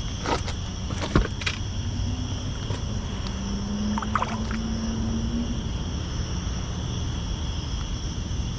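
Night outdoor ambience: a steady low rumble with a continuous high insect trill, likely crickets. A few short clicks and knocks come in the first seconds, and a low hum sounds for a few seconds in the middle.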